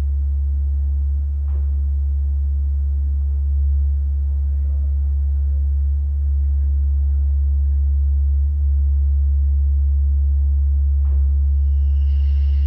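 A loud, steady low hum, with a faint click about a second and a half in and another near the end, where a higher steady tone joins in.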